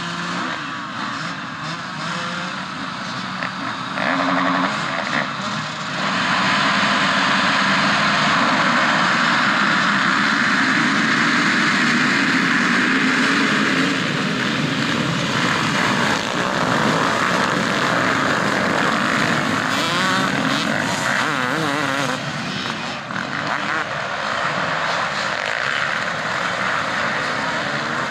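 Motocross bikes racing on a dirt track, several engines revving up and down as they accelerate and pass, loudest for several seconds starting about six seconds in.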